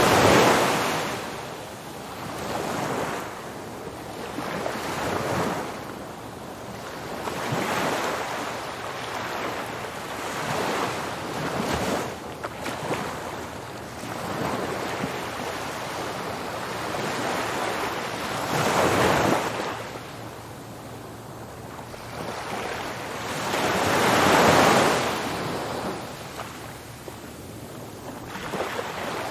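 Ocean waves breaking on a beach: steady surf washing in and out, swelling louder every few seconds, with the largest breakers right at the start and twice in the last third.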